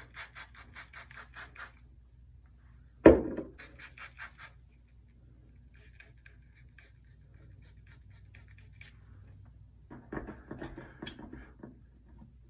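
Trigger spray bottle squirting water onto a loc in quick repeated hissy squirts, about five a second, to wet it before detangling. A loud knock comes about three seconds in, followed by a few more squirts, and a denser run of handling and spraying sounds comes near the end.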